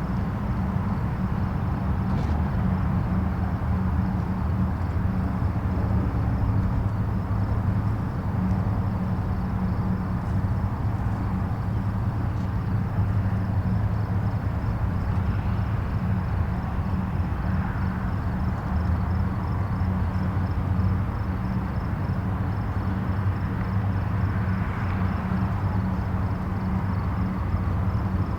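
Distant highway traffic: a steady, even low rumble of continuous vehicles.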